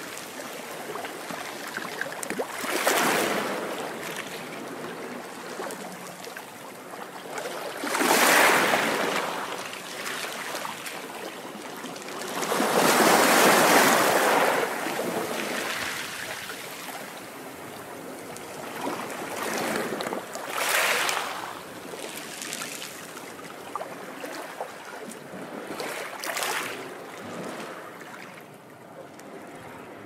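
Ocean waves breaking and washing up a sandy beach: a surge of surf every few seconds, with the wash of foam running on between them. The longest and loudest surge comes around the middle.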